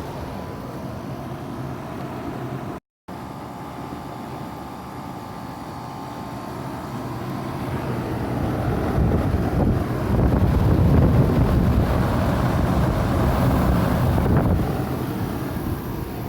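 A 2006 Rheem Classic 3.5-ton central air conditioner running, with a steady hum and a rush of moving air. The sound cuts out completely for a moment about three seconds in, then grows louder from about eight seconds in.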